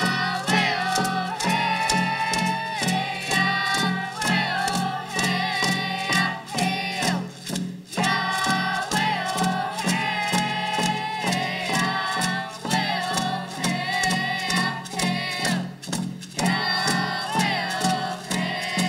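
Group of children and youth singing a song together in unison, over a steady beat on hand-held frame drums struck with beaters. The singing breaks briefly between phrases about eight and sixteen seconds in while the drumbeat carries on.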